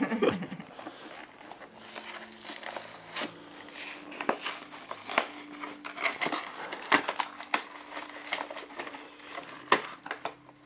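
Cardboard toy box and its plastic packaging crinkling and rustling as they are handled and opened, with many irregular crackles and snaps.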